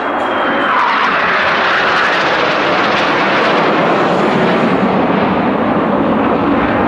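Jet noise from a formation of six Northrop F-5E Tiger II fighters, each with twin J85 turbojets, passing overhead as one loud, steady rush. The upper hiss thins out after about five seconds.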